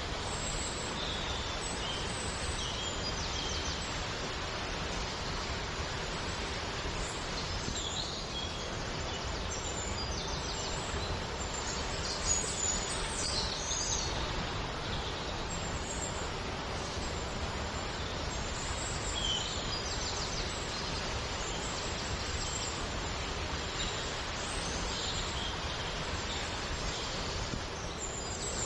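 Steady rush of running water, with birds chirping briefly every few seconds.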